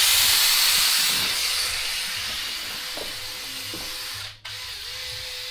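Wire cup brush spinning on a cordless power tool, scrubbing the welds of a freshly fabricated steel turbo dump pipe: a loud, harsh hiss that starts abruptly and eases off slowly. It breaks off briefly near the end, then goes on quieter.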